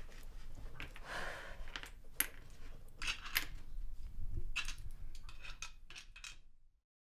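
Letter tiles of a word game being handled and laid on the board: a scattering of light clicks and taps, dying away just before the end.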